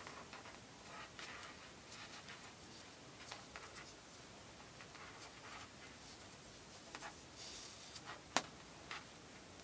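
Faint rustling and soft scattered ticks of cords being handled and drawn through a knot by hand, with one sharper click about eight seconds in.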